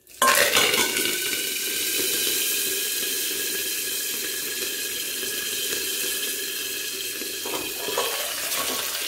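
Curry leaves and a dried red chilli hitting hot ghee in a tadka of mustard seeds, cumin and nigella: a sudden loud sizzle that keeps going steadily as the leaves fry. A light clink near the end as the steel plate covering the pan is handled.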